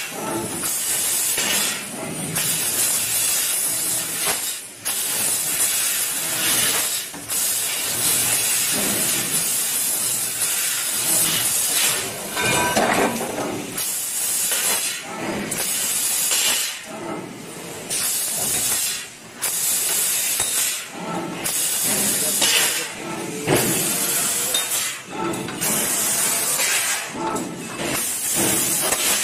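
A 1000 W fiber laser tube cutter cutting metal tube: a loud, steady hiss from the cutting head, breaking off briefly every couple of seconds between cuts.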